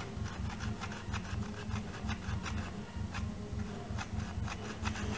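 Hot glue gun being worked along the rim of a plastic pot: irregular small clicks and scraping from the trigger and nozzle as glue is laid on, over a steady low hum.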